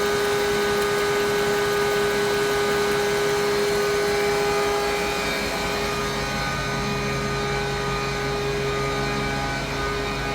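Correa A 30/40 CNC bed milling machine running under power: a steady mechanical hum and whine of its motors and drives, which shifts in tone and drops slightly in level about five seconds in.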